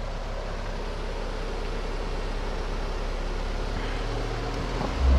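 Jeep engine running at a slow rock crawl with a steady low hum. Near the end comes a brief heavy low thump as the Jeep comes down off the rock.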